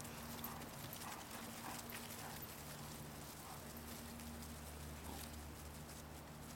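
Faint, irregular rustling patter of golden retriever puppies' paws scampering over dry grass and fallen leaves, over a steady low hum.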